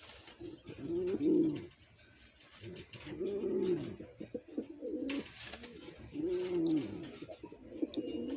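Male domestic pigeon cooing: three long, low coos a few seconds apart, each rising then falling in pitch.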